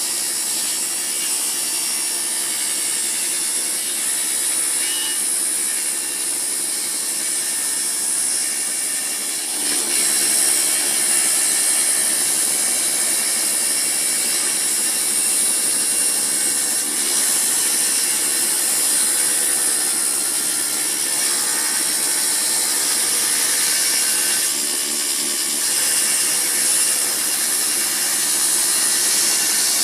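Assembled table saw running and cutting old wood lengthwise, a steady high-pitched whine that gets louder about ten seconds in.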